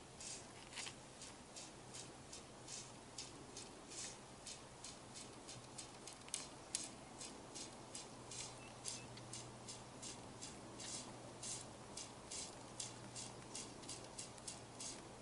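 Fly line being stripped in with short, quick pulls, each one a brief hiss of line sliding through the fingers and rod guides, about two or three a second in an even rhythm.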